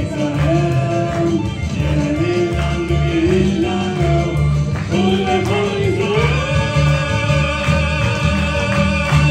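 A young man sings into a handheld microphone over a backing track with a pulsing bass line. The melody climbs into one long held note about six seconds in.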